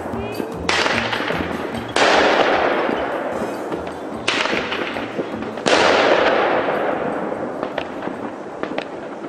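Fireworks going off: four sudden bangs, a second or two apart, each dying away slowly, followed by a scatter of small crackling pops near the end.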